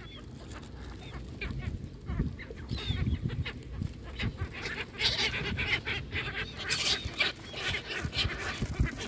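Gulls and ducks calling in short harsh cries as they crowd in for food on the water, mixed with wing flaps, busiest about halfway through.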